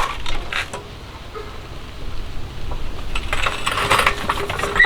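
Metal tools clinking and clattering as they are handled: a few clinks at the start, then a quick run of clinks from about three seconds in.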